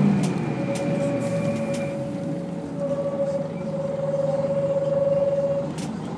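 Volvo B10BLE bus's brakes screeching in one steady tone for about five seconds as the bus slows to a stop, cutting off just before the end, over the low running of its diesel engine.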